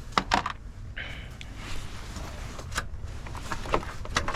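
A few sharp clicks and clinks of metal tools and parts being handled during alternator removal. The two loudest come close together right at the start and lighter ones follow later, over a low, steady rumble.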